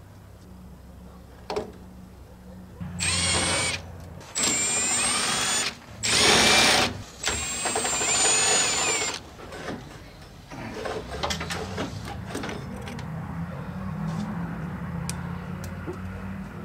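Cordless drill/driver run four times in short bursts of one to two seconds, backing out the bolts that hold the heater blower motor, its motor whining high. It is followed by several seconds of scraping and rattling as the blower motor is worked out of its housing.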